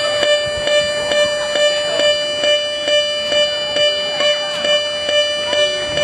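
Miniature railroad crossing's warning bell ringing the Japanese 'kan-kan' at an even pace of a little over two strikes a second, one steady ringing pitch over the beat. It is the signal that a train is approaching the crossing.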